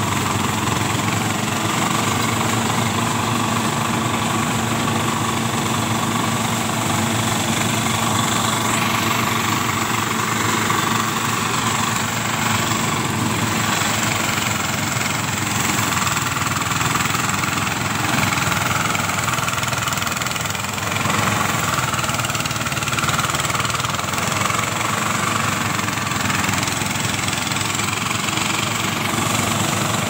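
Small engine-powered rice thresher running steadily as bundles of rice stalks are fed into its drum.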